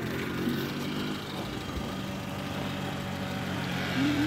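A motor vehicle's engine running steadily at idle.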